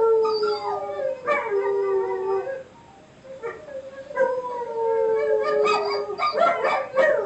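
A dog howling at a phone: two long, drawn-out howls, the first sliding slightly down in pitch, then a run of short, broken yips and howls near the end.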